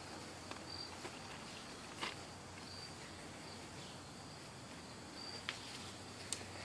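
Faint yard ambience: a short, high insect chirp, like a cricket's, repeats about every two seconds. A few sharp clicks come from footsteps on the leaf-strewn ground, the loudest about two seconds in and near the end.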